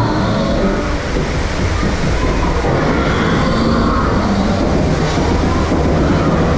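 Flume ride boat being hauled up a chain lift hill: a steady, loud rattling clatter and rumble from the lift chain and boat.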